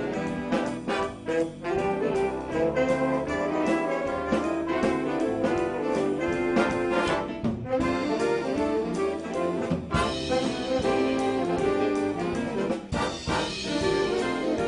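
A student band's brass section playing a jazzy holiday tune, trombones and trumpets to the fore with a steady beat.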